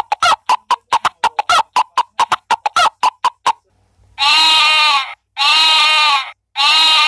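Recorded hen clucking, a quick run of short clucks for about three and a half seconds, followed by three long sheep bleats, played from the small speaker of a children's sound book's button panel.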